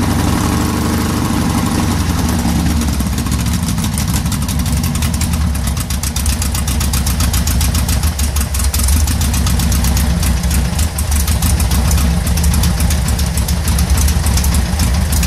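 Air-cooled flat-four engine, fitted with electronic ignition, idling on a test stand while being tuned. Its speed eases down in the first couple of seconds, then it runs at a steady, evenly pulsing idle.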